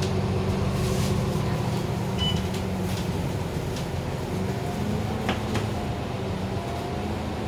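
Steady drone inside a moving city bus: engine and ventilation hum, with a few faint clicks and rattles.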